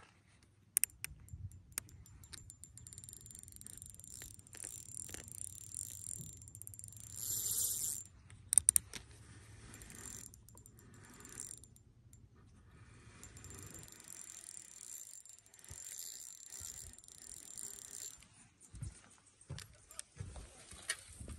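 Spinning reel cranked in spells while reeling in a hooked trout, its gears whirring with scattered sharp clicks. The loudest burst comes about seven to eight seconds in.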